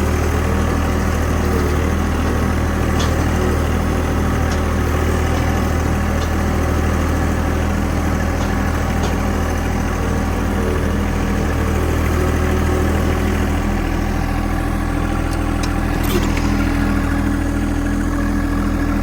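Vehicle engine running steadily while driving out with a load of rock, heard close up from on board; the engine note shifts about two-thirds of the way through.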